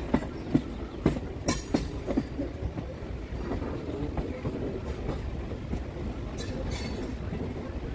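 Kolkata suburban EMU local train running, its wheels clattering over pointwork in a quick series of sharp knocks for the first couple of seconds, then a steady rumble on the rails with a couple of brief hisses.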